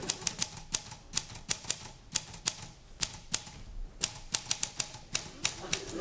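Keys of a portable manual typewriter clacking in irregular runs of typing, with a short pause a little past halfway.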